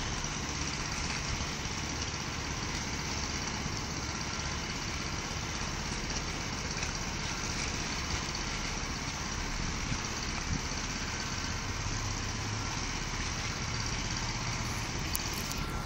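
An engine idling steadily at a constant speed, a low even hum that does not change.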